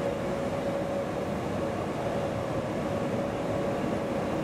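SJ loco-hauled passenger coaches rolling slowly along a station platform: a steady rumble of wheels on rail with a constant hum over it.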